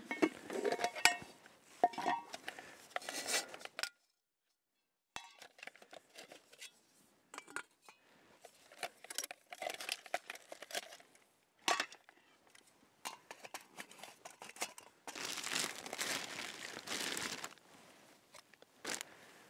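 Aluminium camping cookware clinking and rattling as a stove, windscreen and pot are put together, with a plastic bag crinkling and rustling, most steadily for a couple of seconds past the middle. A second of dead silence about four seconds in.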